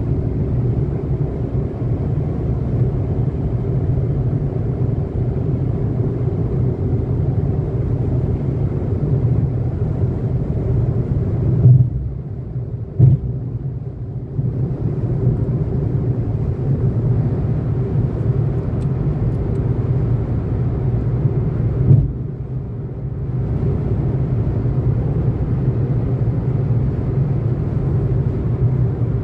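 Steady low rumble of road and engine noise inside a car's cabin while driving at highway speed. Three brief thumps come about twelve, thirteen and twenty-two seconds in, each followed by a short, slightly quieter stretch.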